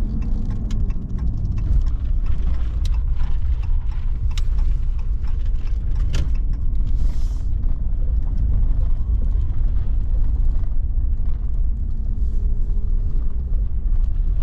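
Half-ton pickup truck driving: a steady low rumble of engine and road noise, with scattered light clicks and rattles.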